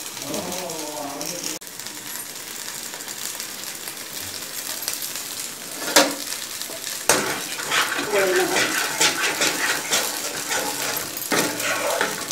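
Marinated paneer pieces shallow-frying in a little oil in a pan, sizzling and crackling, the crackle growing denser after about seven seconds. Two sharp utensil knocks on the pan come about six and seven seconds in.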